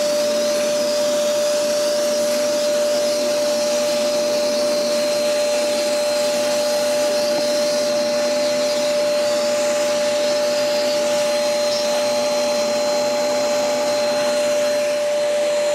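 Atomstack dust collection vacuum running steadily: a loud rush of air with a steady whine as it draws sawdust up its hose into the clear cyclone separator bucket.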